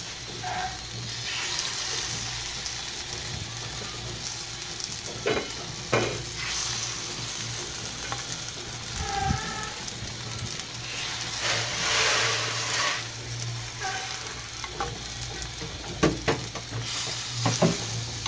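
Spiced raw egg sizzling in hot oil as it is spooned into potato rings in a frying pan, the sizzle swelling about twelve seconds in. A metal spoon clinks against the pan a few times.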